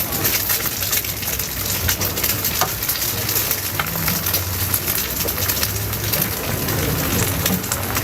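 Food frying in hot oil, a steady sizzle thick with small crackles and pops, over a low steady hum.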